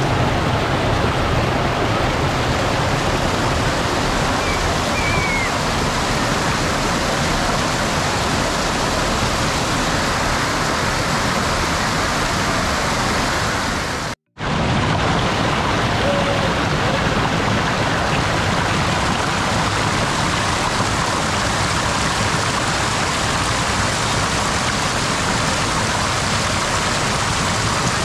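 Steady rush of a waterfall's falling water, broken by a split-second dropout about halfway through.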